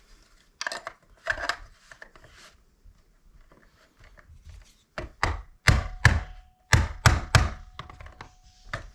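A screwdriver prying and knocking at the plastic housing of a mechanical seatbelt chime module, with sharp cracks and taps, a burst of several louder knocks about halfway through. A faint steady ring from the module's metal chime bar sounds under the later knocks.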